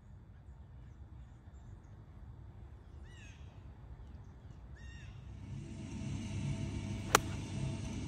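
A single sharp crack of a golf iron striking the ball near the end. Before it come two short bird calls, over a steady low background rumble.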